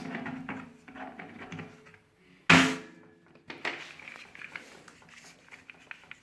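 Hard objects clattering as they are handled, with one sharp, loud knock about two and a half seconds in.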